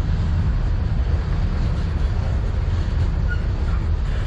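Loaded bulkhead flatcars of a freight train rolling past, steel wheels on the rails making a loud, steady rumble.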